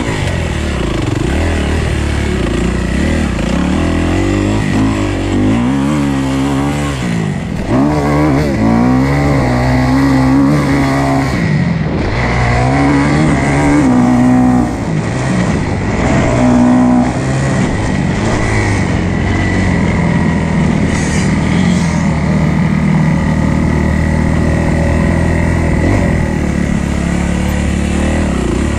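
Kawasaki KX250F's single-cylinder four-stroke engine under hard riding, revving up and dropping back again and again as the rider works the throttle and gears on a dirt track. The revving is loudest and most busy in the middle stretch and steadier near the end.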